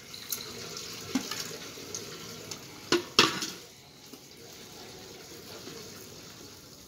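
Water splashing as cut cauliflower is rinsed by hand in a plastic bowl, with water poured over it from a metal bucket. Two sharp knocks about three seconds in, as the metal bucket is set down on the concrete, are the loudest sounds. After that only quieter swishing remains.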